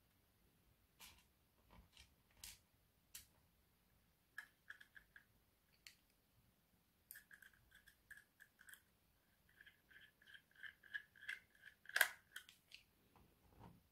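Small Phillips screwdriver driving screws into an SSD's metal mounting bracket: a few faint handling clicks, then runs of quick, slightly squeaky ticks as the screws turn, with the sharpest click near the end.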